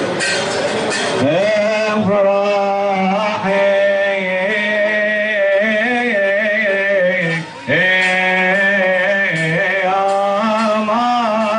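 A man singing an Arabic praise hymn to the Virgin Mary, stretching long held, ornamented notes with no clear words. Crowd noise is heard at the start, and there is a short break for breath about seven and a half seconds in.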